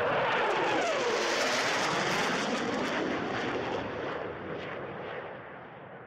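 Jet aircraft flying past: a rushing engine noise whose whine slides down in pitch about a second in, then fades away steadily.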